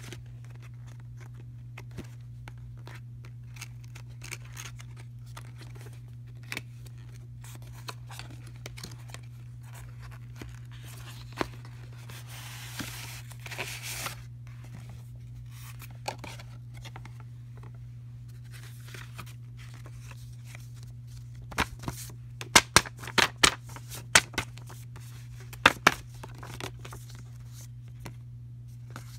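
Cardboard box and paper inserts being handled during an unboxing, rustling and sliding, with scattered clicks and a cluster of sharp clicks and taps in the last third. A steady low hum runs underneath.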